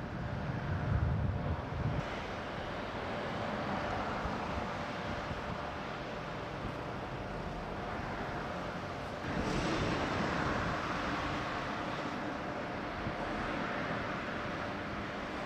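Distant shipyard ambience: a steady mechanical drone with a faint hum in it, with low wind buffeting on the microphone for the first two seconds. About nine seconds in, a broader, slightly louder noise comes in and holds.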